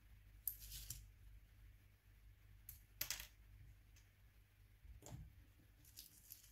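A few faint clicks and light taps of small metal parts as a Nokia N93 camera module is pried apart by hand and its pieces set down, the sharpest near the start and about three seconds in.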